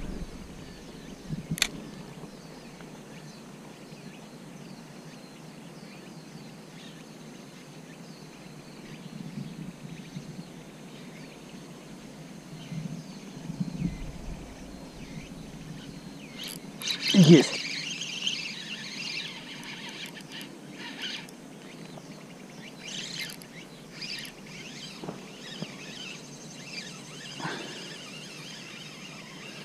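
Quiet outdoor background with faint bird chirps; a single sharp click about two seconds in. About two-thirds of the way through, a short burst of splashing as a blotched snakehead is hooked and thrashes at the surface.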